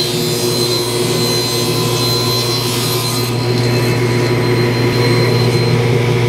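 Table saw running with its blade cutting through a plywood piece pushed on a crosscut sled. The cutting noise stops about three seconds in, and the blade keeps spinning free with a steady hum.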